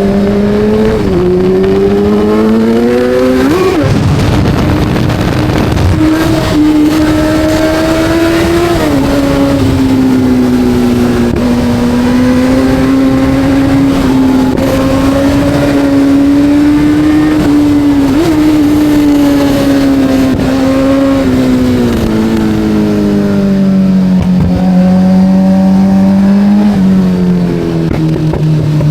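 Kawasaki Z900's 948 cc inline-four engine under way: it revs up, drops in pitch at a gear change about four seconds in, then holds a steady cruise. Near the end it eases off, picks up again and changes gear once more.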